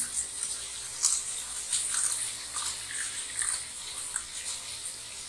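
Water draining off a tilted steel plate of soaked poha (flattened rice), with irregular small splashes and drips onto a wet counter.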